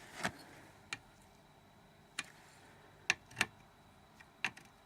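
A phase tester screwdriver being handled against the antenna's circuit board and plastic housing: about seven short, sharp clicks and taps at irregular intervals, two of them close together about three seconds in.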